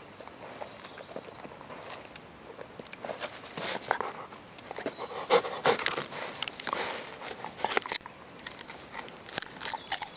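Golden retriever gnawing a wooden stick: irregular crunching and cracking of the wood, busiest in the middle stretch.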